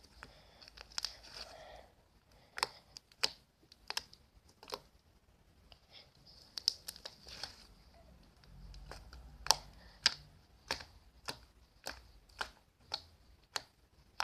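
Hands kneading and poking slime: a string of sharp, sticky pops and clicks at an irregular one or two a second, with soft crinkly squishing in the first two seconds and again about halfway through.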